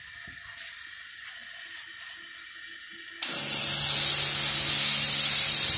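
A high-pressure car-wash pump and its spray jet come on suddenly about three seconds in: a loud, steady hissing spray over a low, even motor hum.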